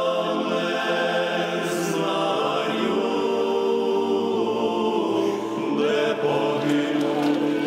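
Choir singing a slow, mournful chant, holding long notes together in harmony and moving slowly from chord to chord.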